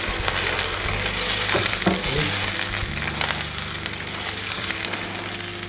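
Vegetables sizzling in a nonstick frying pan as water is poured in from a glass and a wooden spoon stirs, with a few light knocks of the spoon against the pan around the middle.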